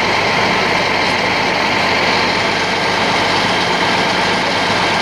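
A large engine running steadily at idle, with a constant hum under an even rushing noise.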